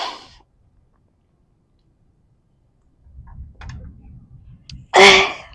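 A woman crying: a short breath at the start, then about three seconds of near silence, then low rustling and a few light clicks as she moves at the table, and a loud, brief sob about five seconds in.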